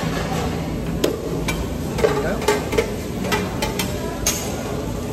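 Restaurant dining-room din: scattered sharp clicks and clinks of utensils on dishes, roughly every half second, over a steady low hum and faint background chatter.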